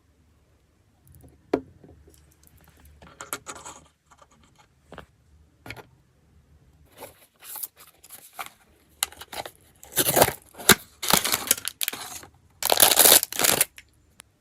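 Blind-box packaging being torn open by hand: scattered clicks and crinkles, then louder tearing, with the longest rips near the end.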